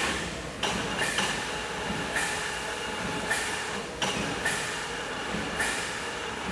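Metallic clanks repeating at a regular pace of roughly one a second, with a few extra strikes in between. Each one rings briefly.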